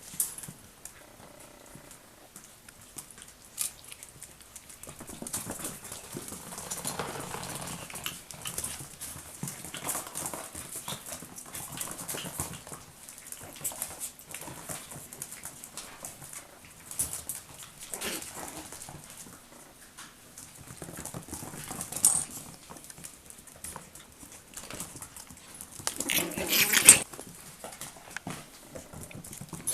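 Chihuahua puppies moving about and fussing: scattered small clicks and scuffles, with one louder scuffle near the end.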